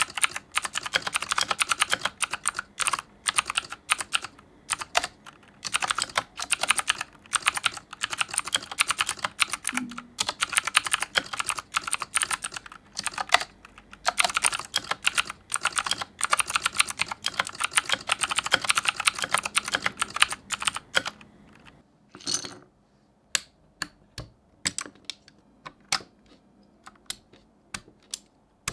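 Typing on the AJAZZ K870T mechanical keyboard with blue switches: a fast, continuous run of key clicks. About 21 seconds in the typing stops. After a short rustle, scattered single clicks follow as keycaps are handled.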